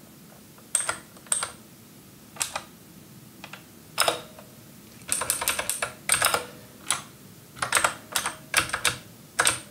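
Computer keyboard keystrokes: single taps and quick runs of several clicks in irregular bursts, thickest in the second half.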